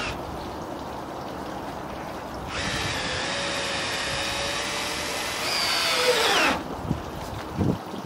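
Cordless drill-driver driving a long screw into a timber pergola brace. The motor whines steadily for about four seconds, gets louder, then slows and drops in pitch under load before stopping. Water trickles steadily underneath, with a few light knocks near the end.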